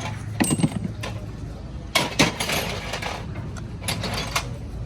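Clinks and knocks of metal tools and engine parts being handled in a workshop, in three short clusters about two seconds apart.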